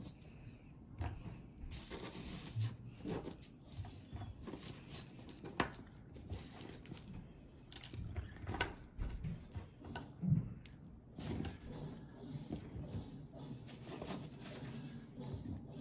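Pieces of peppermint bark being picked up off parchment paper and dropped onto a plate made of peppermint candy: irregular small knocks and clacks of candy on candy, with the parchment paper rustling.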